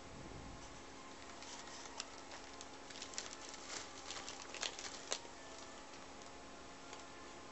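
Paper and plastic lining crinkling and rustling under a cat as it shifts and rolls over in a cardboard box: a scatter of small crackles, busiest from about a second and a half to five seconds in.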